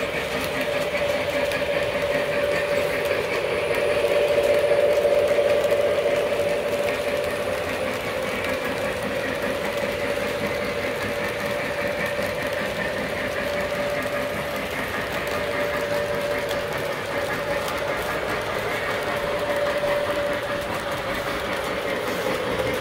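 Lionel O-gauge model train running on three-rail track: a steady motor and gear whine over the rolling clatter of the cars' wheels on the rails, swelling a little about four seconds in.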